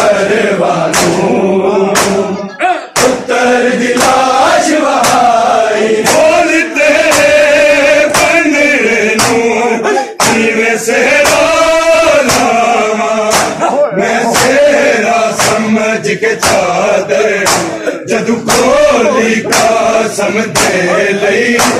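A chorus of men chanting a Punjabi noha, with loud, regular slaps of bare hands striking bare chests (matam) in a steady rhythm.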